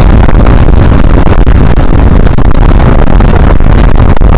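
Loud, steady wind noise buffeting an action camera's microphone at riding speed on a Honda CBR125R. The motorcycle's single-cylinder engine runs underneath.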